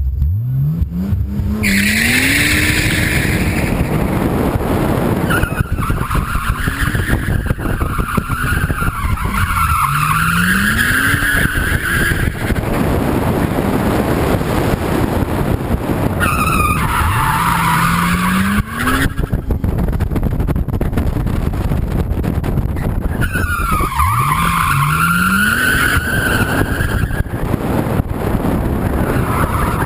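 1997 Nissan Skyline R33 GTS-t's turbocharged RB25DET straight-six revving up hard four times as the car accelerates. The tyres squeal in long, wavering stretches, four times, as the car slides through the corners.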